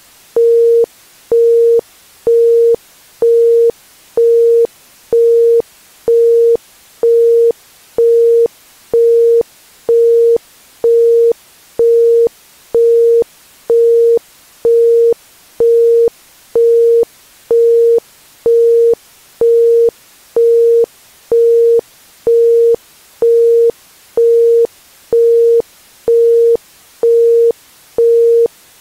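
Isochronic tone: a steady 465 Hz pure tone switched on and off about once a second (1.05 Hz), each pulse starting and stopping sharply, over a faint steady hiss.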